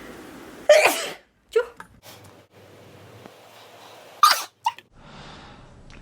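A person sneezing twice, the sneezes about three and a half seconds apart, each followed by a short, quieter burst.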